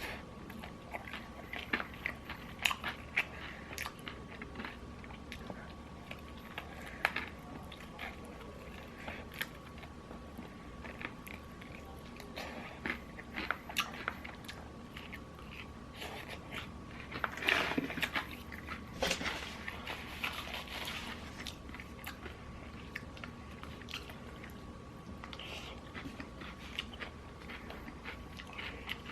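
Close-up mukbang eating sounds: Popeyes fried chicken being bitten and chewed, with crisp crunches of the fried coating scattered throughout. The crunching is densest a little past halfway. A faint steady tone runs underneath.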